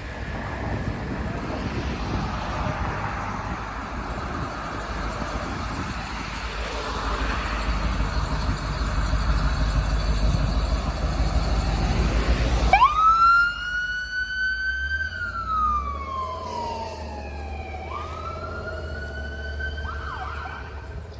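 Emergency vehicle siren wailing: after a long stretch of low engine and road rumble, the siren comes in loudly about two-thirds of the way through. It sweeps up quickly, holds, slides slowly down, then rises again.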